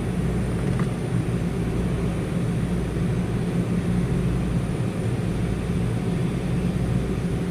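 Steady low mechanical hum of workshop machinery, unbroken and even in level.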